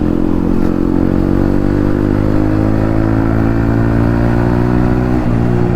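Yamaha MT-15's 155 cc single-cylinder engine running through an aftermarket Akrapovic exhaust while the bike is ridden, its note rising slowly and steadily as it pulls under throttle.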